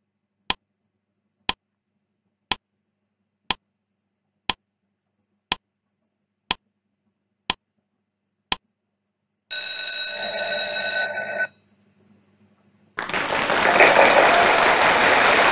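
Countdown-timer sound effect ticking once a second, nine ticks, then an alarm bell ringing for about two seconds as the time runs out. After a short pause comes a louder burst of even noise lasting about four seconds, as the answer is revealed.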